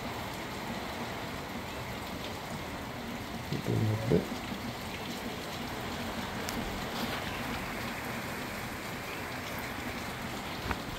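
Heavy tropical-storm rain with gusting wind through banana plants, a steady hiss. A short burst of human voice comes about four seconds in.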